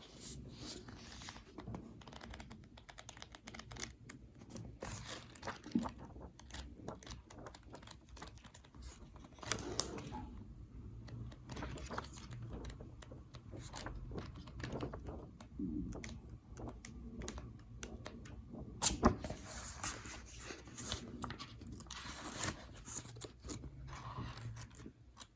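Unboxing handling sounds: paper and plastic packaging being torn and crinkled, with many small taps and clicks.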